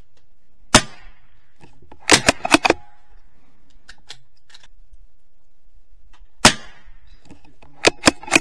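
Two gunshots at a shooting range, about six seconds apart. About a second and a half after each one comes a quick run of four or five sharp clacks.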